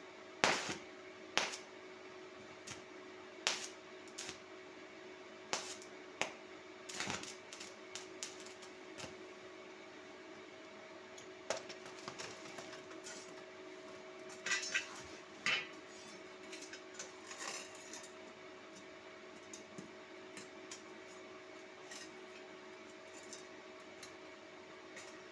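Irregular metallic clinks and knocks, a dozen or more spread unevenly, over a steady hum with a faint steady tone: tools or metal parts being handled and set down in a workshop.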